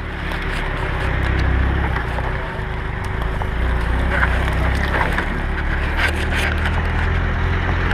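VAZ-2106 (Zhiguli) four-cylinder petrol engine running steadily under load as the car drives slowly over a dry dirt track, with a few knocks and rattles from the body over bumps.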